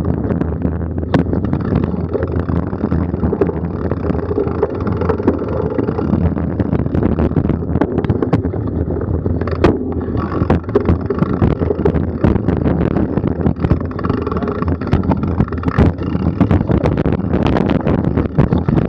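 Mountain bike ridden along a dirt forest trail, heard from a camera on the bike: a steady rumble of tyres and wind on the microphone, with frequent clicks and knocks as the bike rattles over bumps.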